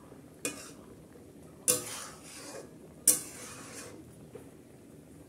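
Spatula knocking and scraping against a steel kadai while stirring a simmering jute-leaf broth: three sharp strokes just over a second apart, the last two loudest, each trailing a short scrape.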